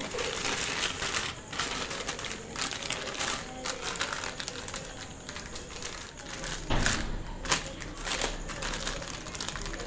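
Empty plastic salt packet crinkling and crackling in the hands as a cut-off plastic bottle neck is pushed into its mouth, with two louder handling knocks about seven seconds in.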